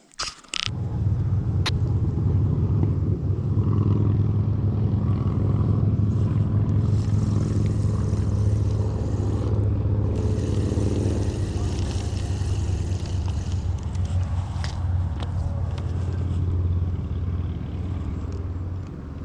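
An engine running steadily, a low pitched rumble, with a few light clicks over it.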